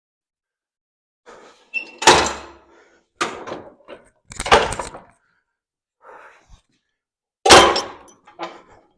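Heavy metal clunks of swing-arm tool stands being snapped up and locked into place, with four loud knocks about two, three, four and a half and seven and a half seconds in, and lighter knocks between them.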